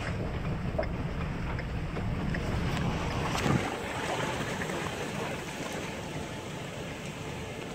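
Truck driving slowly over a rutted mud track: a steady low rumble of engine and tyres, with wind noise on the microphone. The rumble eases a little about halfway through.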